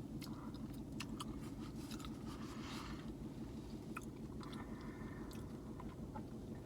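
Close-up chewing of a mouthful of burrito: wet mouth clicks and smacks, quiet and continuous, over a steady low hum.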